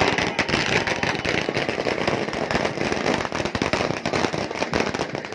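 A string of firecrackers going off in a rapid, continuous crackle of sharp pops.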